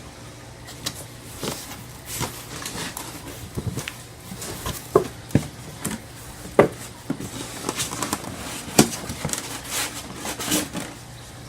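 A cardboard box being opened and its contents unpacked by hand: scattered rustling with several sharp clicks and knocks, the loudest about five, six and a half and nine seconds in.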